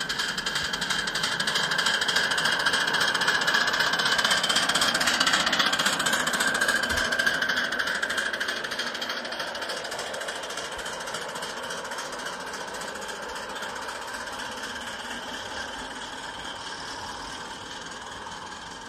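Ride-on miniature railway locomotive hauling a train of goods wagons passes by: a rapid, continuous mechanical rattle with wheels clattering on the rails, growing louder, peaking about five seconds in, then fading as the train runs away.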